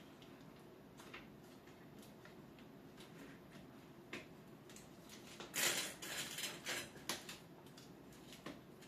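Handling noises: scattered light clicks and taps, with a louder rustling, scraping burst lasting about a second and a half past the middle.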